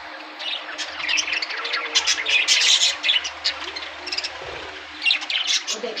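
Budgerigars chirping and chattering, many quick high chirps overlapping, thickest about two to three seconds in and again near the end.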